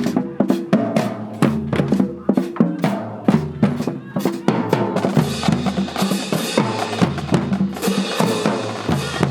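High school marching band percussion playing a marching cadence: rapid snare strokes over bass drum beats in a steady rhythm. From about five seconds in, the sound grows brighter and denser.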